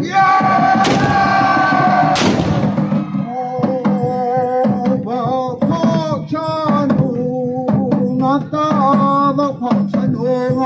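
A group of men chanting a war chant: a long held call, then short phrases repeated about once a second, with two sharp cracks near the start.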